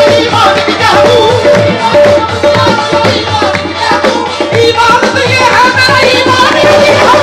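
Live qawwali music: a harmonium, tabla and group hand-clapping under the lead singer's voice, which slides through ornamented phrases about five seconds in.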